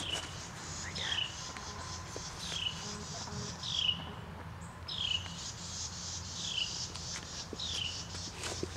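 A bird calling the same short falling note over and over, about once a second, with a few faint knocks near the end.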